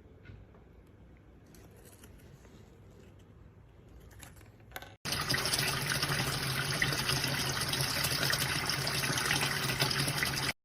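Water gushing hard through a washing machine's water inlet valve, with a steady low hum beneath it. It starts abruptly about five seconds in and stops suddenly at the end; before that there are only faint handling sounds.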